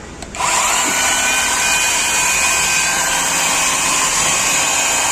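Cordless battery chainsaw starting up about half a second in, its electric motor and chain quickly rising in pitch, then running at a steady high whine.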